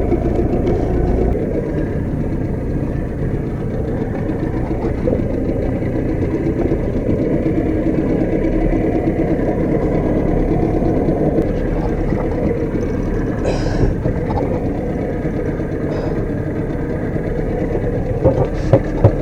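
Boat engine running steadily at low trolling speed, an even low rumble, with a few sharp knocks near the end.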